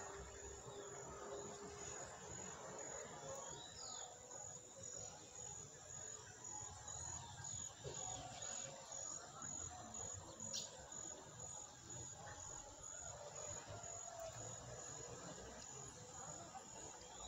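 Faint outdoor ambience: an insect trilling steadily at a high pitch throughout, with a few short high chirps.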